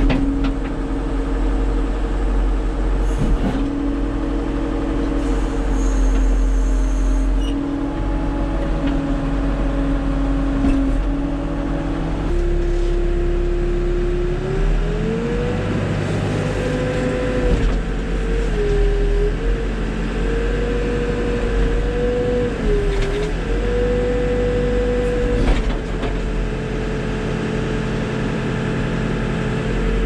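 Backhoe loader diesel engines held at about 1500 rpm, heard from inside the cab during a front-loader lift test: first the Fiat-Hitachi FB100, then, after a sudden change about twelve seconds in, the Fiat-Kobelco B100. The second engine's note rises and dips briefly several times.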